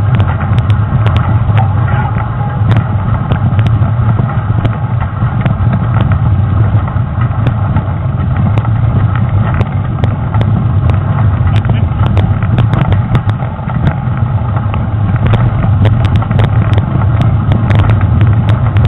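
Mountain bike riding over a dirt trail, heard from the handlebars: a steady low rumble of wind and tyre noise with frequent sharp clicks and rattles from the bike and camera mount over the bumps.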